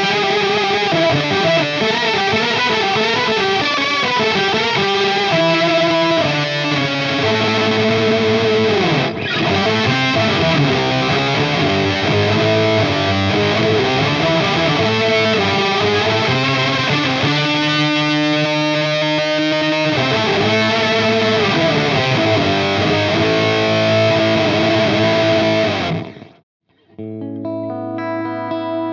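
Distorted lead electric guitar through a Laney LC15R valve amp, played with an octave effect and delay, with fast runs and held notes. It cuts off about 26 seconds in, and shortly after a clean guitar tone with delay begins.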